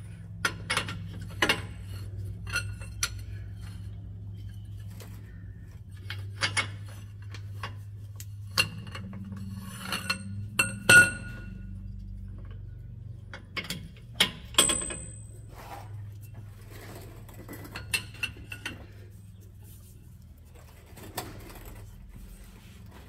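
Steel breaker bar, socket and cheater pipe clinking and ringing against each other in irregular sharp knocks as they are fitted and heaved on a seized bolt that will not break loose, the loudest clank about halfway through. A steady low hum runs underneath.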